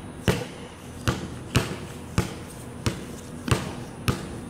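Basketball dribbled on a concrete court: a steady run of about seven bounces, just under two a second.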